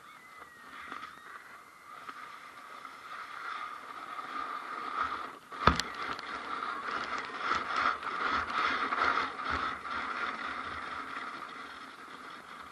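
Plastic sled sliding down a snowy slope: the hiss and scrape of its base over the snow builds as it gathers speed, and a sharp knock from a bump lands about halfway through. Rattling and scraping follow, then ease off near the end.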